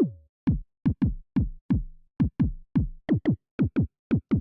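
Synthesized trap kick drum preset from Arturia's Trap Drop pack for Analog Lab, played over and over in an uneven rhythm at about four hits a second. Each hit is a sharp attack that drops quickly in pitch into a deep boom.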